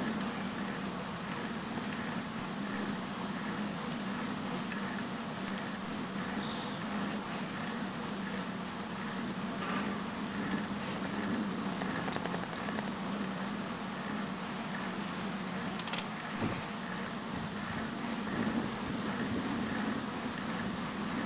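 Steady rolling noise of a bicycle riding along a paved trail, with a short run of faint high ticks about six seconds in and a single sharp click past the middle.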